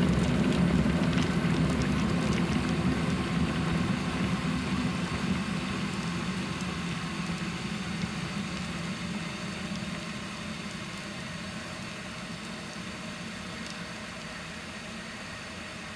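Electric kettle at the end of its boil, the rushing, bubbling rumble fading steadily away as the boil subsides.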